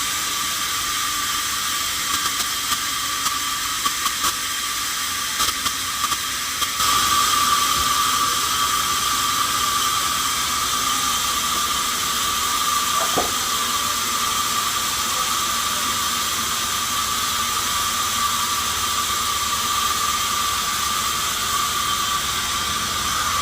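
Sawmill machinery running with a steady high hiss, with scattered clicks in the first several seconds; it grows louder about seven seconds in.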